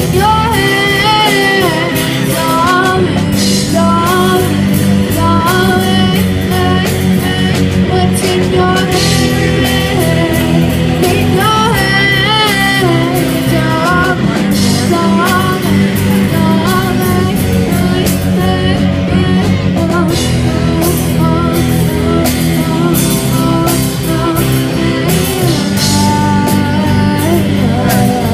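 Children's rock band playing live: a girl sings a wavering melody over electric guitars through amplifiers and a drum kit.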